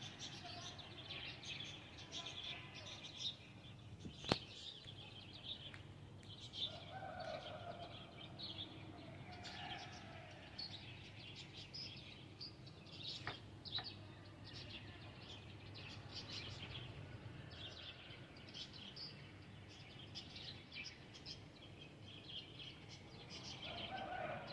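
Small birds chirping steadily in the background, many short high calls, with two sharp clicks, about four seconds in and again about thirteen seconds in.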